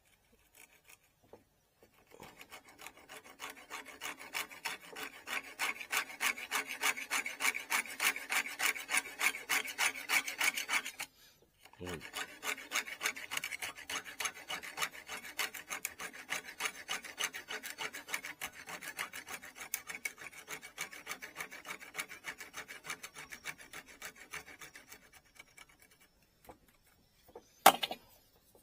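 Hand abrasive rubbed back and forth over a bamboo rod section to smooth down a node, in steady strokes of about three a second. The strokes pause briefly about eleven seconds in, with a small knock, then resume a little softer. A sharp click comes near the end.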